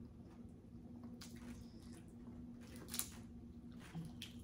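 Faint wet squishing and a few soft clicks, with one sharper click about three seconds in, from hands peeling and eating boiled seafood. A steady low hum runs underneath.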